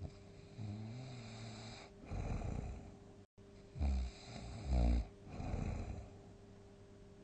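A person snoring loudly and irregularly. A drawn-out, hum-like snore comes first, then a rough snoring breath, then two loud, fluttering snorts close together about four and five seconds in, followed by a breathy exhale.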